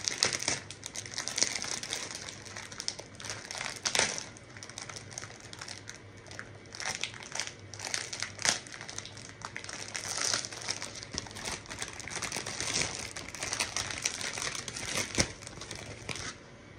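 Crinkly plastic wrapping of a Peeps Marshmallow Party Cakes package being handled and torn open, a continual crackling rustle with sharp crackles, stopping just before the end.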